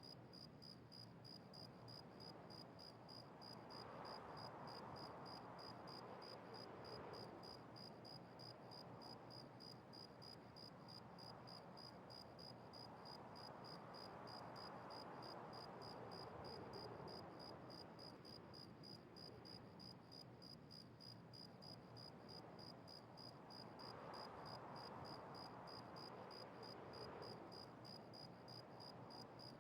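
Faint cricket chirping, a high tone pulsing quickly and evenly throughout, over a soft background hiss that swells and fades a few times.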